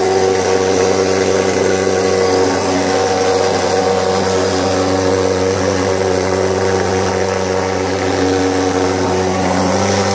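Portable thermal fogger's pulse-jet engine running at a steady pitch with a loud, even drone while it pumps out fog.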